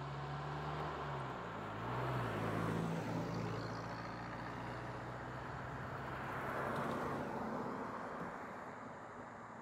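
Vehicles driving slowly past on a paved road: a steady engine hum in the first few seconds, and engine and tyre noise that swells as each one passes, about two seconds in and again near seven seconds.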